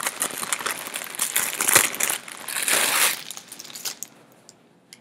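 Packaging crinkling and rustling in quick bursts as an item is pulled out and unwrapped by hand, dying away about four seconds in.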